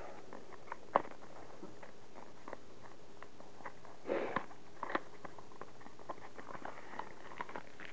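Small cardboard knife box being handled and opened by hand: scattered light clicks and scrapes of the card flaps, with a sharp tap about a second in and a brief rustle about four seconds in.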